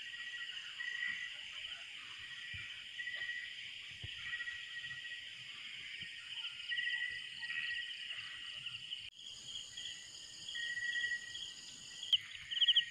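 Night insect chorus of crickets and similar insects: several overlapping high-pitched pulsing trills that go on steadily, with a brief dropout about nine seconds in.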